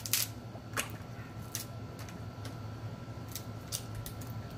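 Crab leg shells being cracked and snapped apart by hand to get at the meat: a scattering of short, sharp cracks and clicks.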